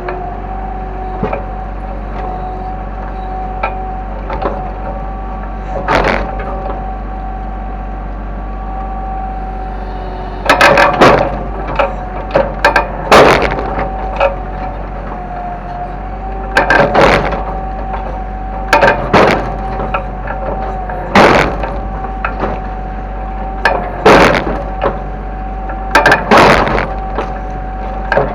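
Kobelco excavator running steadily with a constant whine over its engine drone. From about ten seconds in come a run of loud cracking crashes, in clusters every second or two, as material breaks under the machine.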